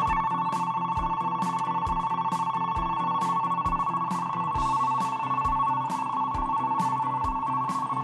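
Railway platform departure bell ringing: a fast, steady electric ring on two close high tones. It is set off by the conductor pressing the departure button and signals that the train is about to leave. It cuts off near the end.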